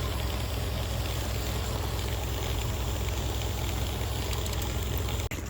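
An engine running steadily with a low, pulsing rumble under a constant rushing noise, cut off abruptly near the end.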